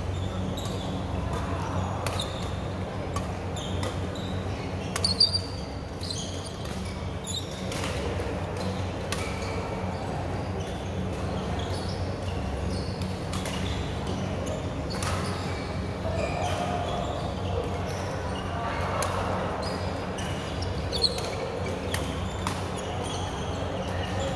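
Badminton rallies in a large, echoing sports hall: sharp cracks of rackets striking shuttlecocks and shoes squeaking on the court mats, with indistinct voices and a steady low hum underneath. A loud squeak stands out about five seconds in.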